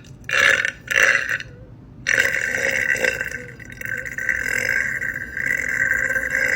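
A person burping: two short burps in quick succession, then one long, drawn-out burp starting about two seconds in.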